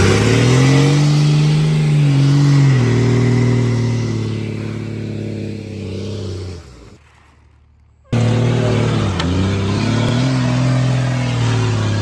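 Second-gen Dodge Ram 2500 Cummins turbodiesel revving up sharply and holding at high revs, then fading out. After a second's break it is heard again, revs dipping and climbing back before holding steady.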